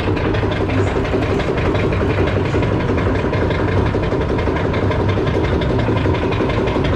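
A fairground thrill ride running at speed, heard from a seat on it: a steady, loud, dense rumble that holds evenly throughout.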